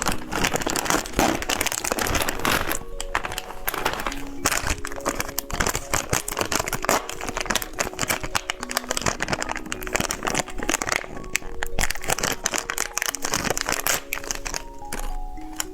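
Candy packaging being handled and crinkled in many quick, irregular crackles, over light background music with held notes.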